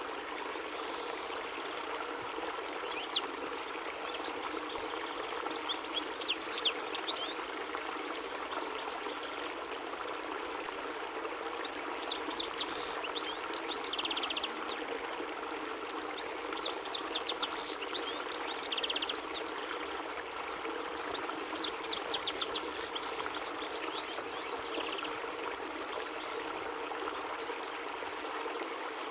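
European goldfinch singing: about five bursts of rapid, high twittering a few seconds apart, some ending in a short buzzy trill, over a steady background hiss.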